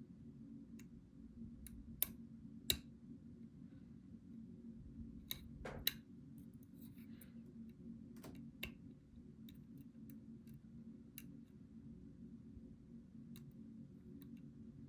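Lock pick and tension wrench working the pins of a challenge lock: irregular small metallic clicks and ticks, a few sharper ones in the first six seconds, over a steady low hum.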